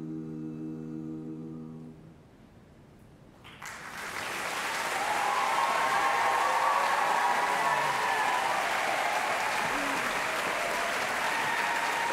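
An a cappella barbershop quartet holds its final chord, which cuts off about two seconds in; after a brief hush the audience breaks into loud, sustained applause.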